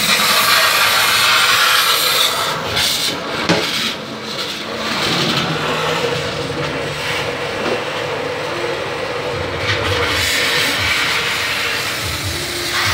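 Soapy rinse water sloshing inside a motorcycle fuel tank and pouring out of its filler opening, over a steady hiss.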